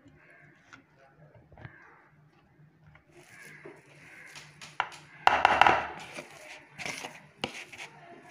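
Boiled potatoes being mashed in a bowl. It is faint at first, then irregular pressing strokes and knocks start about three seconds in, loudest a little past the middle.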